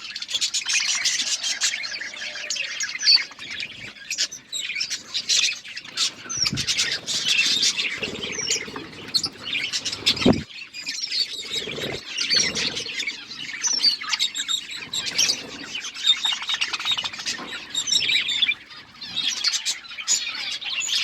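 A flock of budgerigars chattering and chirping, many short overlapping calls without pause, with a few low knocks in the middle.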